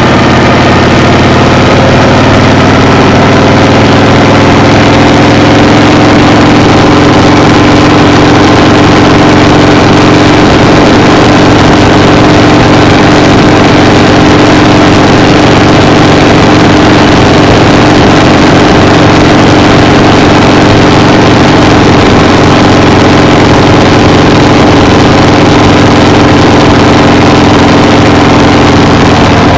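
An engine running steadily at an unchanging speed, loud and close, with a constant low drone.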